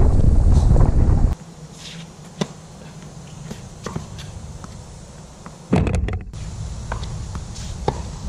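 Tennis ball being struck and bouncing during a singles rally, several sharp pops a second or more apart. Wind buffets the microphone at the start, stops suddenly, and gusts again briefly in the middle.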